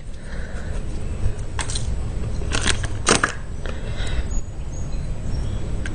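Handling noise: a few short clicks and rustles, about a second and a half in and again around three seconds, over a steady low rumble.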